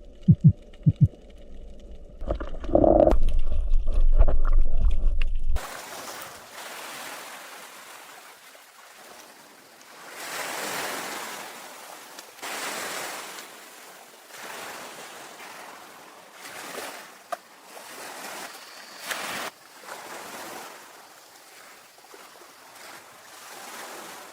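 Ocean waves breaking on a beach, each wash swelling and fading every couple of seconds. Before them come about five seconds of low rumble with a few knocks, which stop abruptly.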